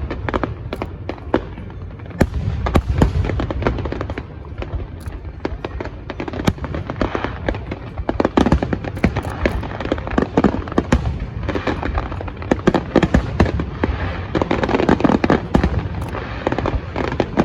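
Aerial fireworks in the finale of a large display: a dense, unbroken barrage of shell bursts and crackling, many reports a second over a constant low rumble of booms, thickening into heavier clusters about halfway through and again near the end.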